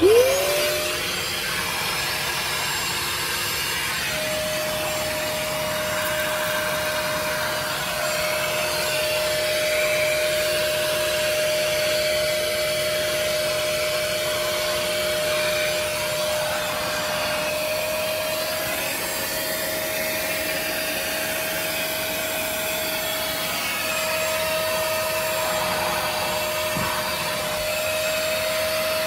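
Bissell SpotClean Pet Pro carpet extractor switched on at the start, its motor whine rising quickly to a steady pitch that then holds. It keeps running while its pet hand tool is worked over car floor carpet, sucking up the wash water.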